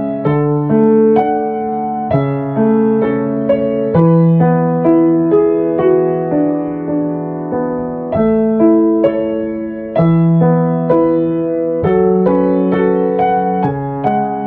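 Solo piano music: a melody of struck notes over held chords.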